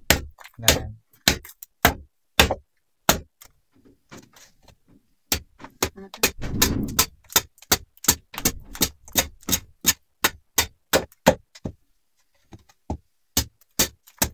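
A sickle blade chopping at a wooden stick: a run of sharp knocks, about two strikes a second, with a short pause about four seconds in.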